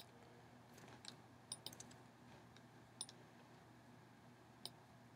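Near silence with a few faint, sharp clicks of a computer mouse and keyboard in use, about seven in all, several close together a second and a half in.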